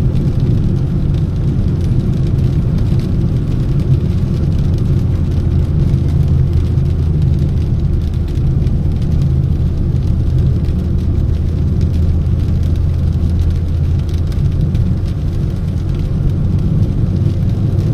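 A car's engine and its tyres on wet asphalt, heard from inside the cabin as a steady low drone.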